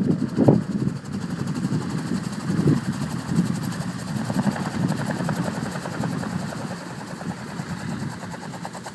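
AutoGyro Calidus gyroplane landing and rolling out on grass, its pusher engine running at idle while the rotor keeps turning, making a steady engine sound with a fast even pulse.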